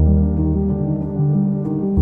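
Background instrumental music with sustained notes over a deep bass note.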